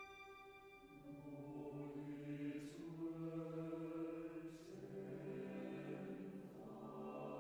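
A violin's held note fades out, and about a second in a mixed choir enters singing softly in sustained chords, with a hissed 's' consonant about every two seconds.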